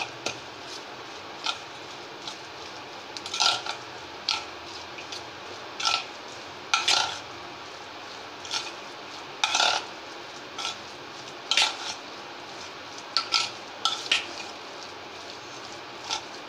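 A hand mixes and beats thick semolina batter in a stainless steel bowl, making short, irregular scrapes and squelches against the metal, about a dozen in all. The batter has just had water added and is being worked to a binding consistency for pakoras.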